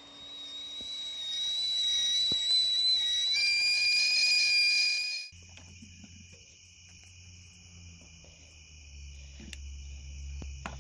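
Stainless steel stovetop kettle whistling at the boil on a camp stove, growing louder, its pitch shifting abruptly partway through. The whistle cuts off suddenly about five seconds in, leaving steady cricket chirping.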